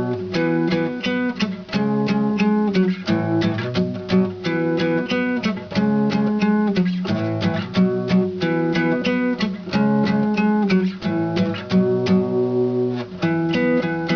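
A strummed string instrument playing chords in a quick, even rhythm, with the chord changing about every second.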